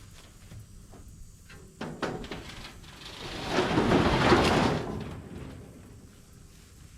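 A heavy piece of scrap metal sliding and scraping into place for about two seconds as it is pushed on, after a knock about two seconds in.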